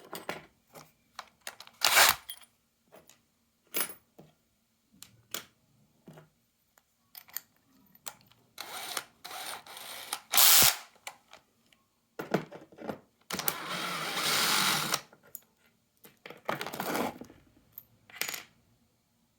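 Workshop handling noises: scattered clicks and knocks with several short rushes of scraping noise, the longest lasting about a second and a half about two-thirds of the way through.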